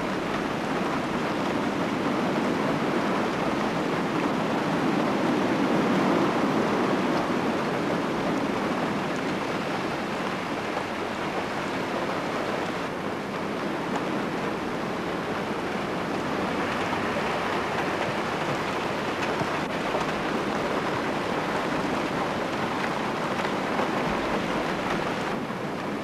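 Steady rushing noise that swells and ebbs slowly, without any clicks or tones.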